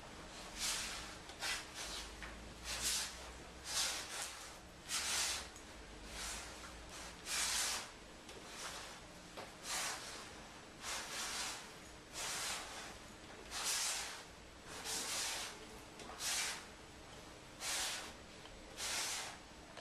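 Piano accordion bellows pushed and pulled without notes sounding, air rushing through in rough hisses about once a second at an uneven pace.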